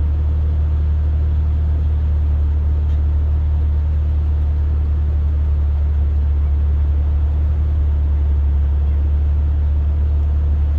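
Low, steady engine drone of a 4x4 crawling slowly up a rock ledge, holding an even note throughout.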